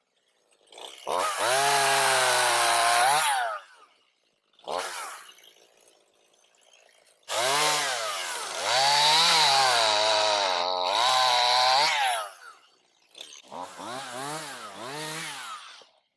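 Gas chainsaw revved in separate bursts while cutting tree limbs, its engine pitch rising and falling. There are three long runs of a few seconds each and one short blip, dropping away between them.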